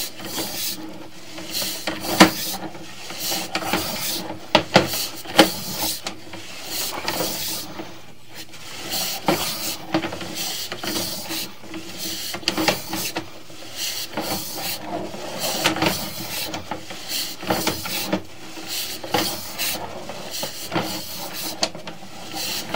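Sewer inspection camera being pushed along its push rod through a lined sewer pipe: irregular rubbing and scraping, with a few sharp knocks in the first six seconds.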